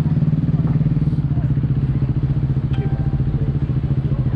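A motorcycle engine idling steadily, a low pulsing note that holds the same pitch throughout without revving.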